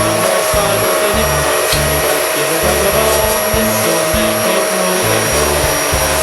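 Upholstery cleaning vacuum running with a steady whine, over background music with a bass beat.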